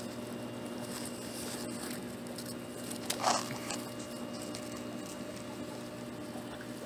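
Faint rustling and handling noise as a phone moves in among cannabis leaves, with one brief louder brush about three seconds in, over a steady low hum.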